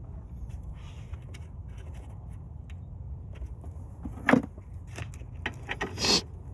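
Scattered light clicks and scrapes of parts and tools being handled in a car's engine bay, with one sharp knock about four seconds in and a louder rustling scrape near the end, over a steady low hum.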